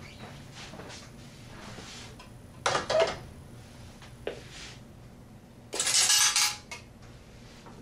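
Metallic clinks and rattles from a Gray/Western 50G payphone's coin mechanism, as coins are handled in it: a quick cluster of clinks a little under three seconds in, a single click, then a longer metal rattle around six seconds in.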